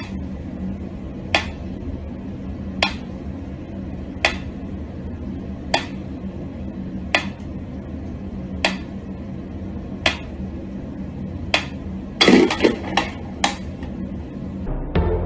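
Mechanical pendulum metronome ticking slowly and evenly, one sharp tick about every second and a half. About twelve seconds in there is a quick clatter of louder knocks, and then the ticking goes on.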